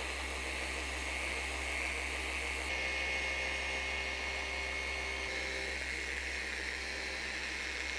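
Flex XC3401VGR forced-rotation dual-action polisher running steadily with a high whine, its polishing pad buffing the painted bumper in the final polishing step.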